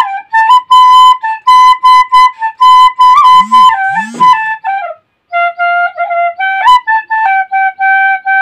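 Tirio, the Santali side-blown bamboo flute, played solo: a melody of short, separately tongued notes, then after a brief break about five seconds in, a lower phrase of longer held notes.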